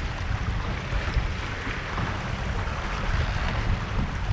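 Wind buffeting the microphone with a steady low rumble, over the broad rush of water along the hull of an Impulse 26 sailboat under sail.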